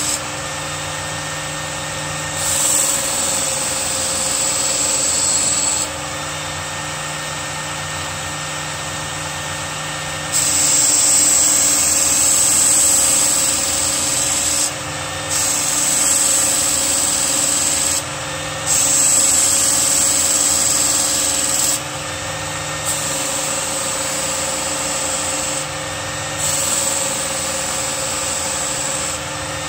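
Work Sharp Ken Onion Edition electric belt sharpener running steadily, with the ESEE-5 knife's steel blade drawn across the abrasive belt in about six passes of a few seconds each, a grinding hiss that starts and stops with each pass. The blade's edge and tip are being reground.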